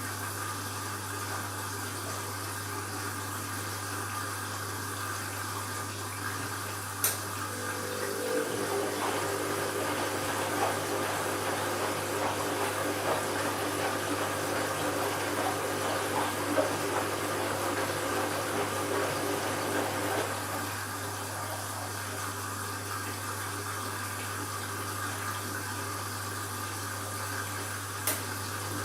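Candy washing machine running an empty bleaching cycle: water flows into the machine over a steady hum. About eight seconds in, a steady motor tone with more splashing joins for around twelve seconds. Two sharp clicks come, one near the start and one near the end.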